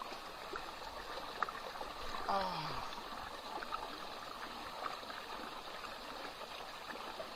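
Stream water rushing at the falls, a steady even wash. A short voice calls out about two seconds in.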